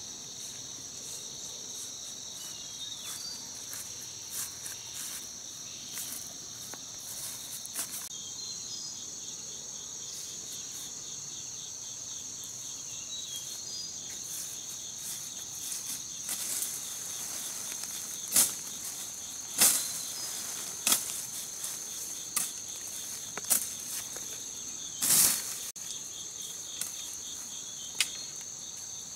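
A steady insect chorus: a constant high drone with a fast pulsing trill beneath it. From about halfway through come a dozen or so sharp cracks and snaps of twigs and brush, the loudest a longer crackle about 25 seconds in.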